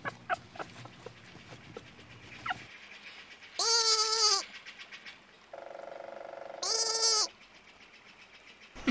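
A goat bleating twice, each a wavering, pitched call; the second starts as a quieter steady note before it swells.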